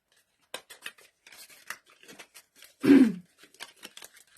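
Cosmetics packaging being handled and opened by hand: a run of small clicks, crinkles and rustles. About three seconds in comes a short vocal sound falling in pitch, the loudest thing heard.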